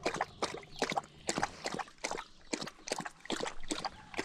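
A thirsty livestock guardian dog lapping water, a quick, uneven run of wet laps, about four a second.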